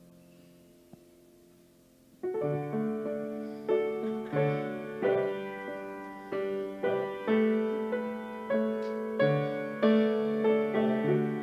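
Piano playing: a faint held chord for the first two seconds, then a steady run of struck chords, about one every two-thirds of a second, each ringing out and decaying before the next.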